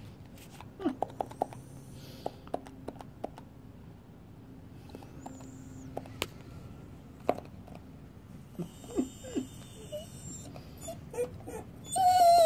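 Dog's teeth chattering: scattered quick clicks, some in short rapid runs, with a few brief squeaky whimpers. At the very end a loud, steady high-pitched whine begins.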